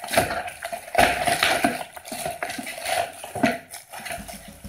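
Keyboard packaging being handled and pulled off, with irregular rustling and crinkling and several sharper crackles.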